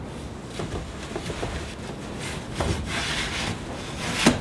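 A wide wooden door panel being slid down between the stiles of a door frame, wood scraping and rubbing against wood with small clicks, then one sharp knock near the end.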